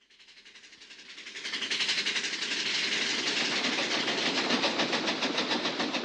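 Theme-park ride's train sound effect: a train running on track with a fast, even clickety-clack rhythm, swelling in over the first two seconds, holding steady, and starting to fade near the end.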